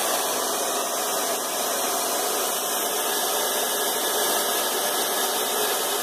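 Hair dryer running steadily, a continuous even rushing noise, used as white noise to soothe a newborn.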